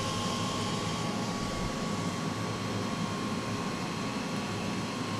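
Steady whirring air noise from a DTF printer and its powder shaker-dryer running, with a thin constant whine.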